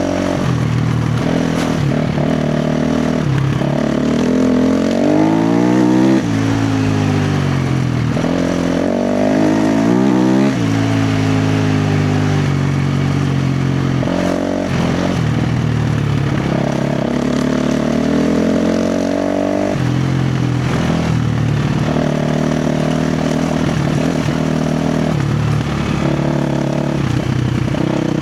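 KTM 350 XC-F dirt bike's single-cylinder four-stroke engine under hard throttle, revving up and down. Its pitch climbs steeply twice, about five and ten seconds in, each time falling off sharply, with shorter bursts of throttle between.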